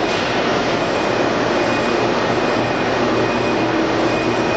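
Steady, loud mechanical running noise from a large Blanchard rotary surface grinder, an even rush with a faint low hum underneath.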